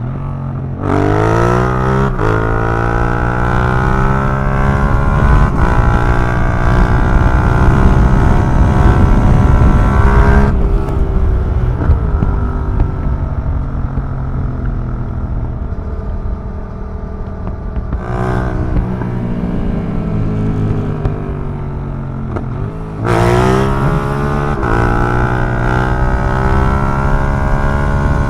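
Yamaha MT-07 parallel-twin engine breathing through an Akrapovic racing exhaust, heard from the moving bike. It accelerates hard about a second in and pulls high for several seconds. It comes off the throttle around ten seconds in and runs lower for a while, with a brief rise, then opens up hard again near the end.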